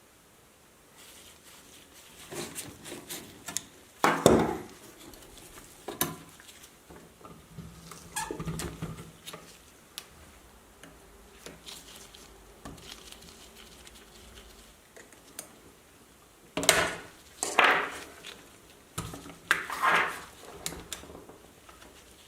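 Metal parts and tools being handled while working on an antique calculator: irregular clinks, knocks and clattering, loudest a few seconds in and again in a run of clatters near the end.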